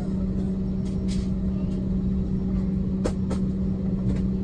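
Steady low drone inside an Airbus A320neo's cabin, with a strong continuous hum, and a few light clicks about a second in and twice around three seconds in.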